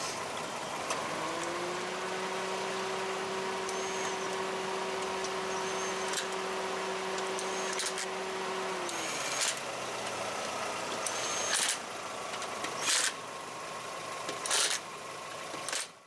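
Lug nuts being run onto a pickup truck's wheel studs: a few short metallic clicks and knocks, most of them in the second half. Under the first half a steady hum fades in about a second in and dies away around nine seconds.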